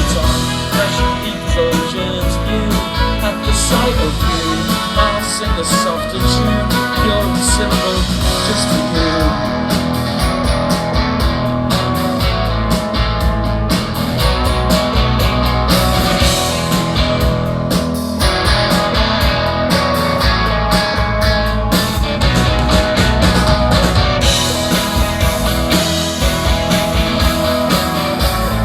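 Live pop-rock band playing an instrumental break with no vocals, guitar to the fore.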